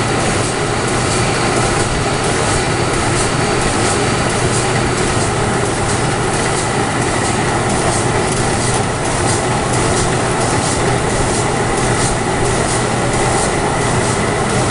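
Corrugated-box casemaker running in production: a steady mechanical din with a low hum and a light, regular clatter a few times a second as blanks are folded along the belts.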